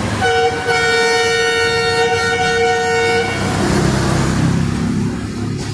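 A vehicle horn sounding one long steady blast of about three seconds, over road traffic noise with a low engine rumble that swells after the horn stops.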